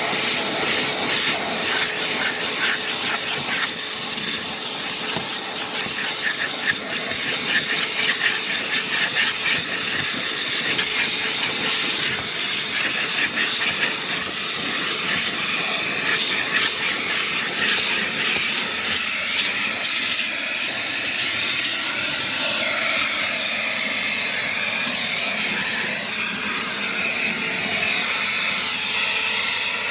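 Makita DCL281 18 V brushless cordless stick vacuum running at steady speed, its motor giving a high, even whine over a rush of air.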